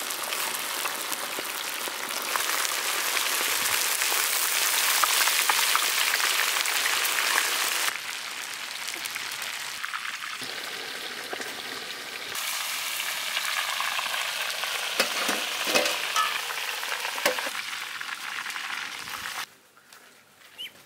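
Masala-coated Spanish mackerel pieces deep-frying in a wok of hot oil: a steady sizzle, loudest in the first eight seconds and quieter after, with a few knocks about three-quarters of the way through. The sizzle stops shortly before the end.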